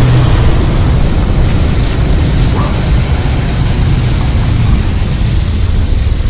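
Loud, steady low rumble with hiss throughout.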